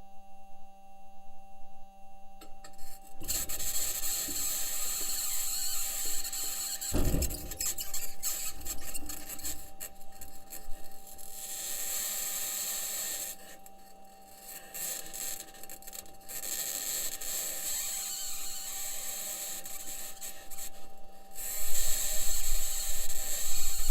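Perseverance Mars rover's metal wheels and suspension grinding, squealing and scraping over rock as it drives, picked up by a microphone on the rover's body. A steady faint tone runs underneath, and there is one sharp knock about a third of the way in. The scraping drops away briefly twice.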